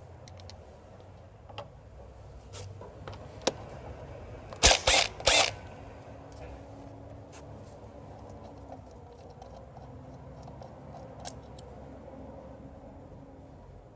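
Hand tools working on the engine, most likely a ratchet loosening a coil bolt: scattered light metallic clicks, and three loud rasping bursts close together about five seconds in.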